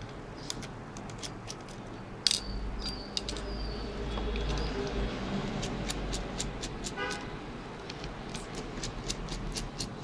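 Small sharp clicks and ticks of a precision screwdriver working the housing screws of an old BlackBerry phone, with one louder click about two seconds in. Behind it, a low traffic rumble swells for a few seconds and a vehicle horn honks briefly about seven seconds in.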